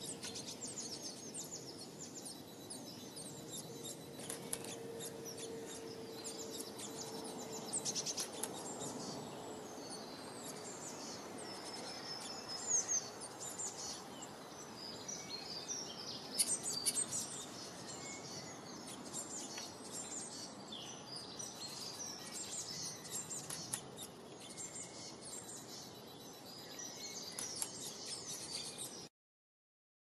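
Small songbirds chirping and calling, many short, varied high chirps and trills over a steady background hiss. The sound cuts off suddenly near the end.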